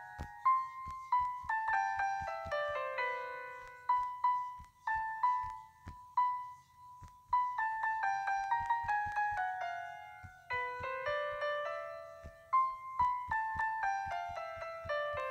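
Background piano music: single notes played in short phrases that step downward, each note struck and left to fade.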